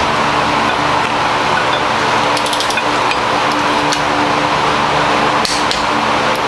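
Camshaft being slid by hand into a big-block Chevy engine block, with a few light metallic clinks as steel meets the block and cam bearings, over a steady background hum.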